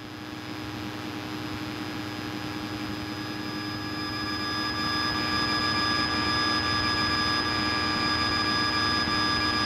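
Piper Cherokee's engine and propeller droning steadily at a constant pitch, heard inside the cockpit on final approach. The sound grows louder over the first five seconds, then holds steady.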